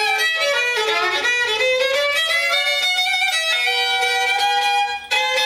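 Bowed fiddle playing an improvised line of long held notes that slide down and then climb back up in pitch, with a short break about five seconds in.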